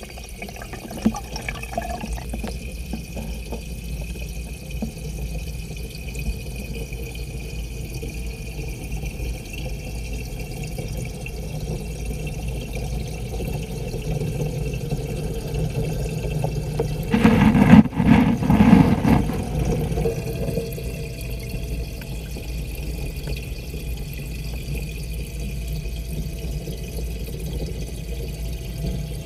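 Aquarium water heard through an action camera submerged in the tank: a steady, muffled rumble of moving water. A little past halfway there is a louder churning burst lasting about two seconds.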